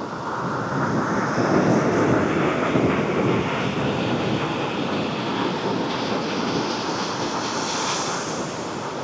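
Ocean surf with wind on the microphone: a steady rushing wash that swells about a second in, with a brighter hiss building near the end.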